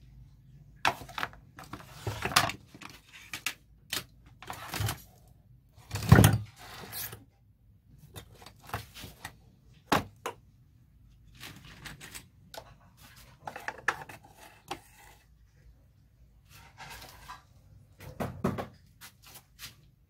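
Hard plastic casing and loose panel of an electric fan heater being handled on a workbench: scattered knocks, clicks and scrapes, the loudest a thunk about six seconds in.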